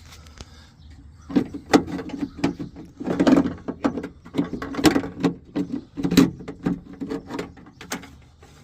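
Irregular knocks, clunks and rattles of latch hardware being worked by hand inside a pickup's hollow steel door, as the new latch assembly and its rod or cable are fed into place. They start about a second in and carry on with little pause.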